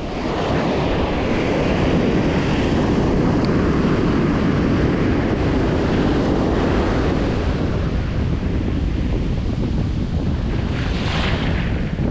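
Wind buffeting the microphone over ocean surf breaking and washing on a beach, with a swell of wash in the first half and a brief hiss near the end.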